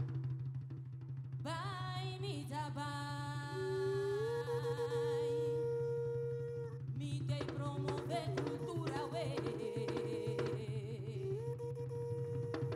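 Live band: a woman sings a slow melody with long held, wavering notes into a microphone through the PA, coming in about a second and a half in. Drums join from about seven seconds in, over a steady low hum.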